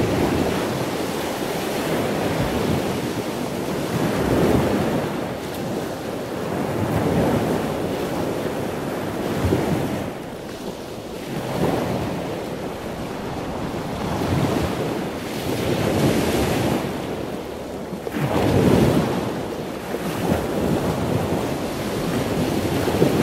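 Ocean surf: waves washing in, the rush swelling and easing every two to three seconds.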